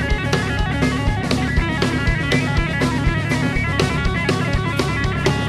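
Rock-style music with guitar and a steady drum-kit beat.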